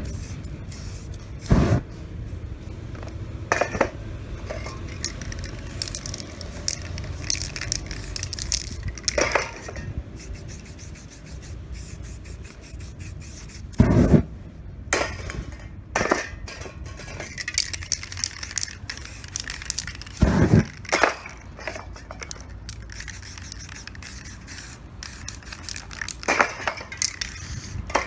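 Aerosol spray-paint cans hissing in many short bursts as paint is sprayed onto a board. A few loud knocks scattered through, the loudest about 14 s and 20 s in.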